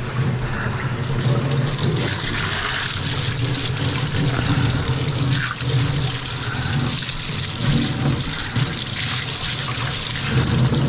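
Water running steadily from a tap into a laundry sink and down the drain, which is draining freely now that a lint and food clog has been cleared.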